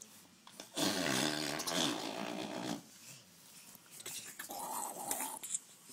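A baby growling with her voice, making rough, engine-like 'car' noises: one long stretch of about two seconds starting about a second in, then a shorter, breathier one near the end.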